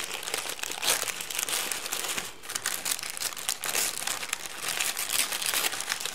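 Purple tissue paper wrapping a package crinkling irregularly as fingers peel off its sealing sticker and pull the paper open, with louder crinkles about a second in and again near the middle.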